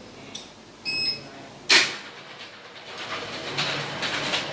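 Motorised roller shutter door: a short electronic beep about a second in and a loud clunk just after. From about three seconds comes a steady rattling rumble as the metal slats run.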